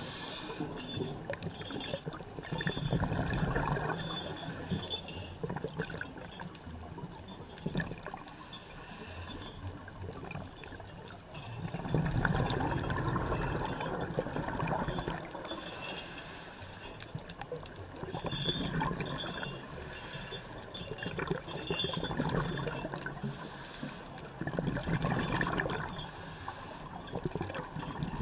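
Underwater bubbling from scuba divers' exhalations through their regulators: a surge of bubbles every few seconds, some lasting two or three seconds, with a steady low wash of water between.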